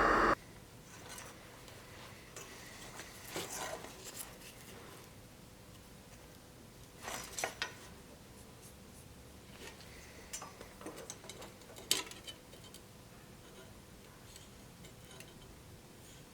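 A loud steady machine noise cuts off just after the start, leaving a quiet workshop with scattered light metallic clinks and scrapes of metal being handled. The clearest come about halfway through and as a sharp click about twelve seconds in.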